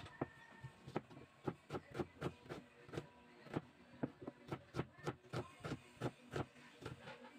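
Kitchen knife chopping a red onion on a plastic cutting board: a steady run of sharp knocks, about four a second, that stops just before the end.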